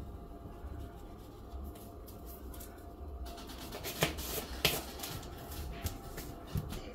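Spice bottles handled and shaken over a plate: scattered light clicks and rattles, with two sharper clicks a little after four seconds in, over a low steady hum.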